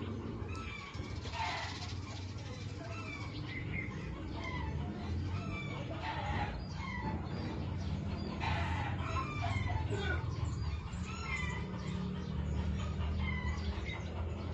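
Birds calling: many short chirps throughout, with louder calls about a second and a half, six and a half and eight and a half seconds in, over a steady low hum.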